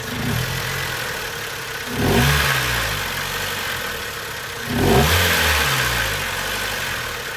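Mazda Protege5's four-cylinder engine idling, with a small throttle blip at the start and two quick revs, about three seconds apart, that each fall back slowly to idle. The owner complains that this engine idles rough.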